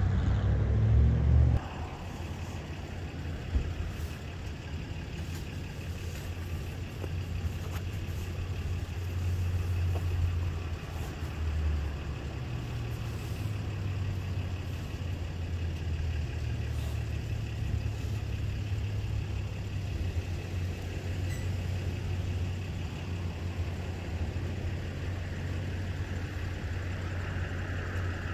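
Vehicle engine idling: a steady low rumble, louder for the first second and a half.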